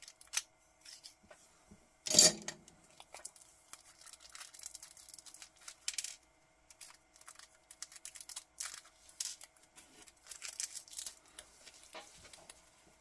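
Small plastic bag crinkling as it is cut and worked open, with light clicks of small metal watch spring bars being handled and set down on a wooden tabletop, and one louder knock about two seconds in.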